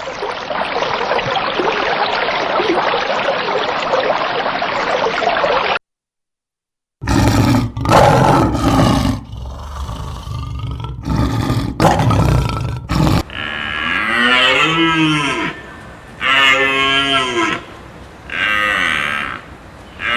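Cattle mooing: several long calls, each rising and falling in pitch, in the second half. Before them comes a steady noisy hiss that cuts off abruptly about six seconds in, then, after a second's gap, a run of irregular knocks and rustles.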